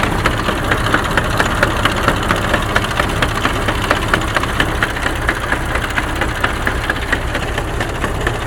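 KamAZ truck gearbox knocking rhythmically, several sharp knocks a second, over the steady running of the diesel engine. The owner hears these knocks in reverse on the low range and places them inside the gearbox itself, not in the axle reduction gears.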